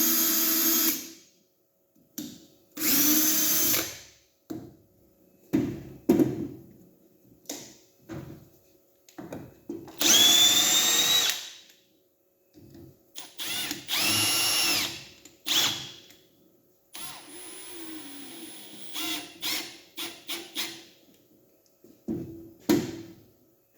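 Milwaukee cordless drill/drivers on speed 2 driving 3-inch wood screws into wood, in several separate runs of motor whine. The longest run, about ten seconds in, rises in pitch. From about 17 to 21 seconds there are short, stuttering pulses of the trigger.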